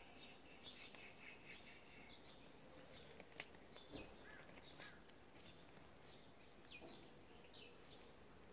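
Faint small birds chirping, with short falling chirps repeating every second or so. One sharp click about three and a half seconds in.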